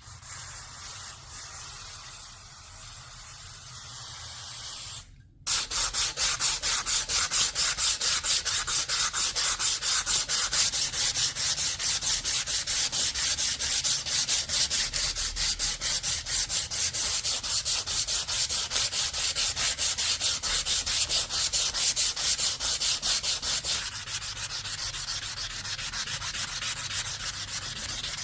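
Abrasive back-and-forth hand rubbing on the steel blade of an antique shashka sword, during rust removal and polishing. The rubbing is soft and uneven at first, then after a short break becomes loud, quick, evenly paced strokes, which ease off slightly near the end.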